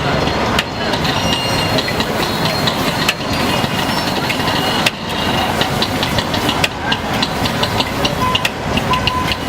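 Busy street noise: vehicle engines running and idling, with a run of rapid clinking in the last few seconds.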